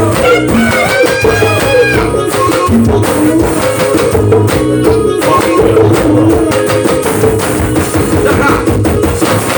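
Live band music in an instrumental passage: a pitched melody line over a steady drum and percussion beat.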